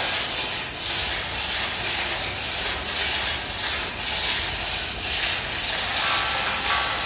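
Manual chain hoist being hauled to lift a steel column, its ratchet clicking about twice a second as the chain runs through.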